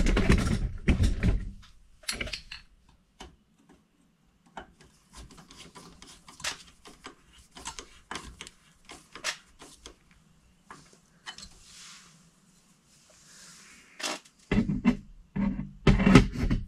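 Hands working bare copper ground wire at a metal electrical junction box: scattered small clicks, scrapes and rubbing of wire against metal. Louder handling bumps come at the start and again near the end.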